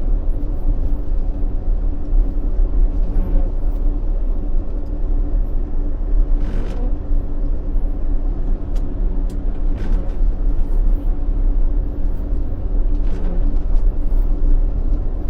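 Motor grader's diesel engine running steadily with a low rumble, with a few brief hissing swishes.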